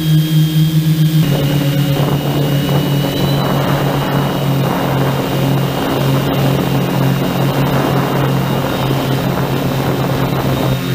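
Multirotor drone's motors and propellers buzzing steadily. About a second in, the pitch steps slightly lower, and a rushing air noise joins from about two seconds in until near the end.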